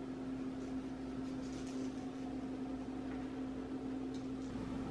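Steady low mechanical hum with one constant tone, with a few faint soft ticks.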